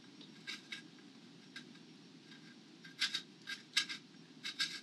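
Small hand tap in a pin vise cutting threads into a drilled hole in a fiberglass sled: faint, short scraping clicks as the tap is twisted in and backed out, a few in the first second and a quicker run of them in the second half.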